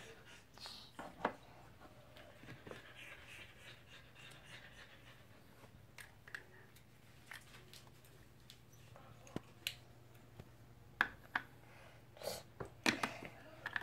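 Scattered light clicks and knocks of small plastic toy figures and dollhouse furniture being picked up and set down on a wooden shelf, over a faint steady hum, with a few sharper clicks near the end.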